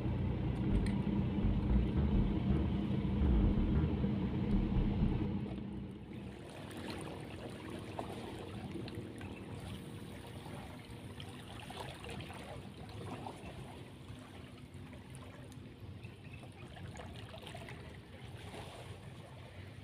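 A steady low motor drone for the first several seconds, dropping away suddenly about six seconds in. After it come quieter shallow seawater lapping and light splashes of someone wading in.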